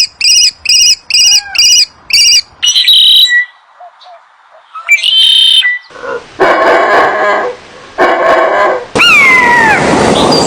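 A series of different animal calls: first six short, high-pitched chirps evenly spaced, then several other brief cries with pauses between them, ending in a longer call that falls in pitch.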